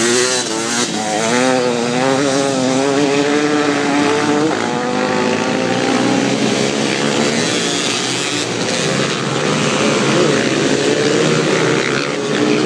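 Several dirt-bike engines racing. One bike close by revs up and down over the first few seconds as it shifts, then the engines blend into a steady mixed drone.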